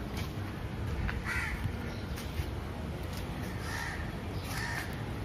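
Crows cawing a few times, short separate calls over a steady low outdoor rumble.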